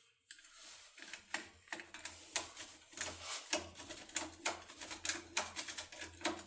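Rapid, irregular light metallic clicking and rattling, several clicks a second: a pin-type magic key for locks being worked in a lock, its pins clicking.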